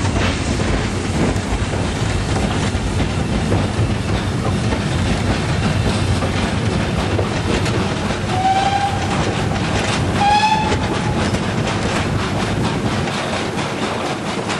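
Ride noise in a goods train's guards van: the steady rumble and rattle of the wagons over jointed rail. A little after halfway, the steam locomotive's whistle gives two short blasts about two seconds apart.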